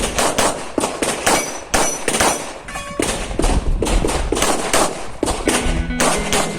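Rapid strings of pistol shots from a CZ Shadow 2 firing an IPSC course of fire, several shots a second, broken by short pauses.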